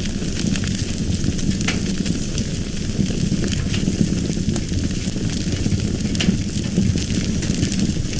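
Fire burning steadily, with a low rumble and scattered small crackles and pops.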